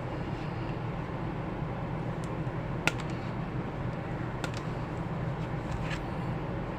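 Steady low background hum with a few short, faint clicks and taps, a sharper one about three seconds in, from handling the wires and tools while connecting a switch circuit.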